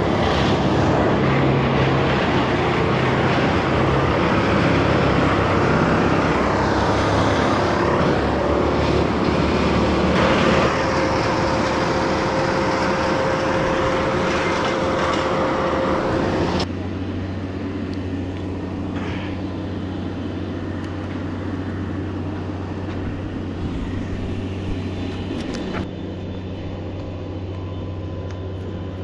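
An engine running steadily under a loud rushing noise, which drops abruptly to a quieter, steady low hum about two-thirds of the way through.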